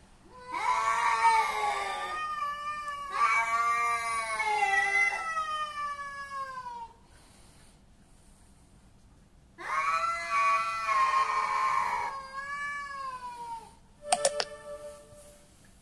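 Two street cats caterwauling at each other in a territorial standoff: long, wavering yowls that rise and fall in pitch, in drawn-out stretches with pauses between, then a short sharp outburst near the end.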